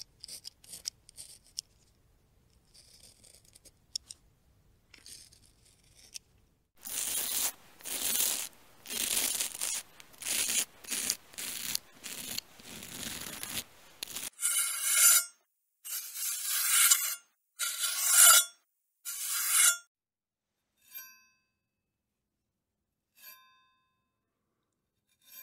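Straight razor sound effects. Faint clicks and soft scraping give way to a run of loud scraping strokes. Then come four long metallic swipes with a ringing edge, and three short, separate metallic pings near the end.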